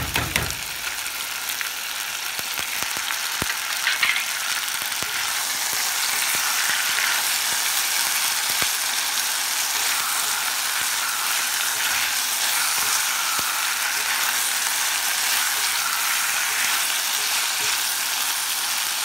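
Sardines and sliced hearts of palm sizzling in oil in an enameled cast-iron pot: a steady frying hiss, with a few light clicks of a utensil against the pot as it is stirred near the end.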